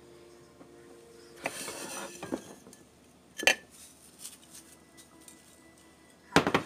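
Ceramic plates and bowls handled on a kitchen counter: a scraping rustle about one and a half seconds in, a single sharp clink about halfway, and a quick cluster of clatters near the end.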